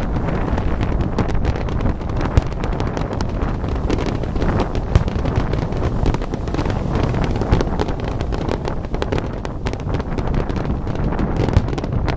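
Fireworks going off over the sea: a steady rumble of distant bursts with many small crackles, and a sharper bang every two or three seconds, under wind buffeting the microphone.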